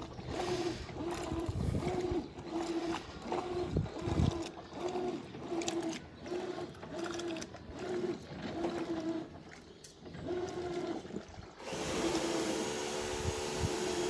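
Electrolux 15 kg Turbo top-loading washing machine agitating a rug in soapy water: the agitator motor hums in short strokes, about one and a half a second, as it swings back and forth, with water sloshing. Near the end it changes to a steadier, louder hum.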